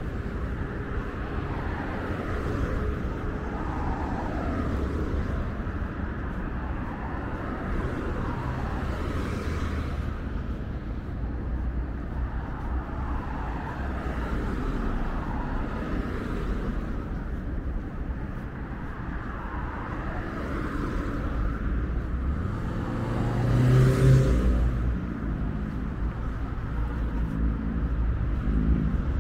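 City street traffic: a steady rumble of cars. One vehicle passes close near the end, the loudest moment.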